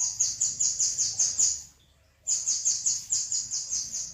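A fast, even run of high bird chirps, about six or seven a second, which breaks off briefly about two seconds in and then starts again. This is recorded birdsong played from an MP3 as a masteran track for teaching a caged white-rumped shama.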